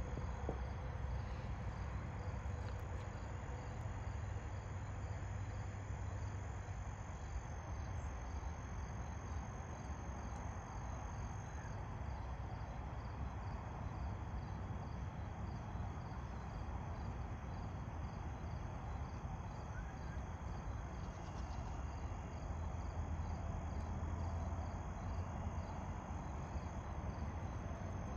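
Crickets chirping in a steady chorus, a high trill with an evenly pulsing chirp, over a low steady rumble.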